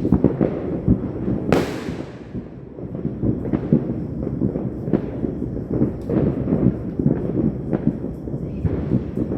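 New Year fireworks and firecrackers going off in a dense, irregular rattle of bangs and pops. One louder burst about a second and a half in fades off in a crackling hiss.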